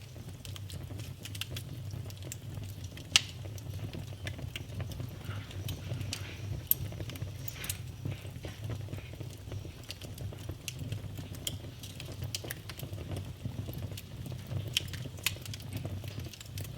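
Wood fire burning in a fireplace: a steady low rumble of flames with scattered crackles and pops, the two sharpest pops about three and seven seconds in.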